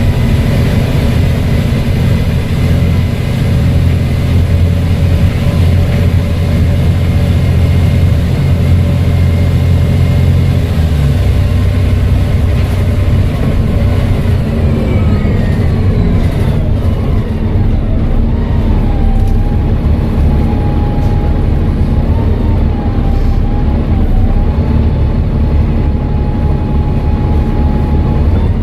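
Volvo B7TL bus's turbodiesel engine running, with a steady loud low drone. Halfway through, its pitch lines fall away. Then a high turbo whistle sets in and holds steady, wavering slightly, to the end.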